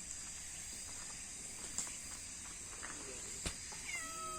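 Steady high-pitched chorus of insects at night, with a few sharp clicks. Near the end a drawn-out, slightly falling call begins.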